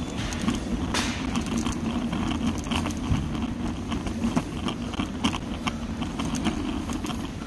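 Large supermarket's background noise: a steady low rumble with many scattered clicks and rattles.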